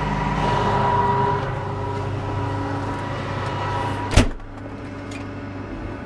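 Combine engine running steadily, with a thin steady high tone over it that fades out about a second in. About four seconds in there is a sharp click, and the machine noise drops quieter after it.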